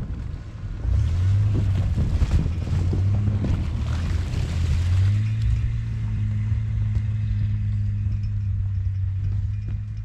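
A 1994 Ford Explorer's 4.0-litre V6 pulling hard under load through a shallow ice-covered river crossing, with ice and snow crackling and crunching under the tyres for the first few seconds. About five seconds in, the engine settles into a steady, slightly higher drone.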